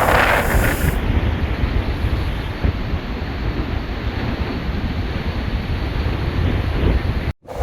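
Cyclone-strength wind buffeting the microphone, a steady rushing noise with heavy low rumble.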